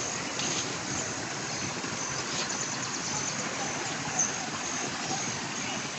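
Steady rush of stream water flowing from a natural spring, with insects chirping in short high repeats over it.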